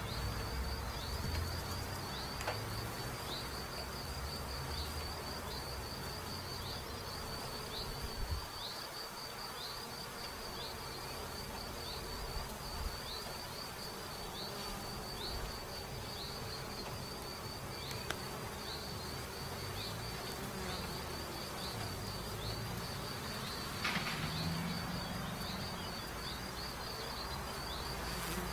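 Honeybees buzzing at a beehive entrance: a steady low hum as foragers fly in and out past the hive. Behind it, a faint high chirp repeats about twice a second.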